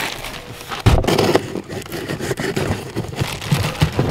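Cardboard shipping box being handled and its flaps pulled open: scraping and rustling of cardboard with small knocks, heavier from about a second in.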